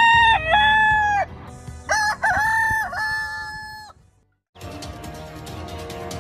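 Rooster crowing: the end of one crow, then a second full cock-a-doodle-doo about two seconds in. After a brief silence past the middle, background music starts.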